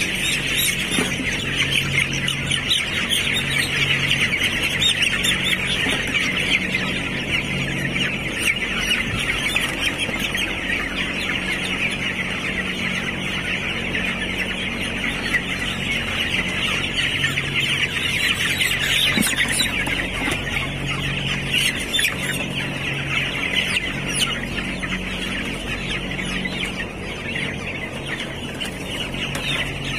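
A large flock of 12-day-old broiler chicks peeping continuously, a dense, unbroken chatter of high calls.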